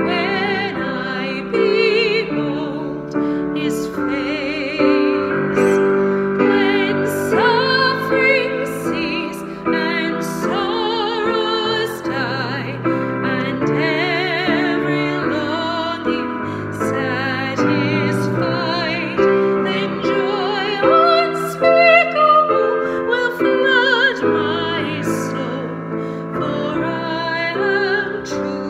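A woman singing a hymn solo with vibrato, accompanying herself on a keyboard with a piano sound.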